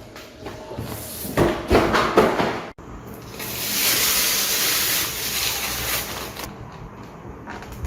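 Unboxing handling noise from cardboard and plastic packaging: a couple of seconds of rustling and knocks, a sudden cut, then a steady hiss of about three seconds as packaging slides, fading back to light handling sounds near the end.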